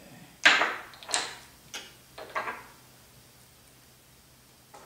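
Small parts and tools handled on a work table: four short, sharp clattering noises in quick succession, the loudest first.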